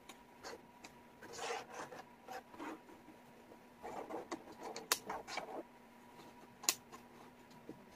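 Wooden jigsaw puzzle pieces sliding and rubbing across a tabletop under the fingers, in two spells of scraping with light taps. Two sharper clicks come as pieces are set down, about five and seven seconds in. A faint steady hum lies underneath.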